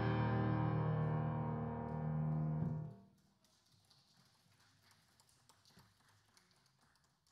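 Grand piano playing the last chords of a piece, which ring on and die away about three seconds in. After that, faint rustling of sheet music pages being handled on the music stand.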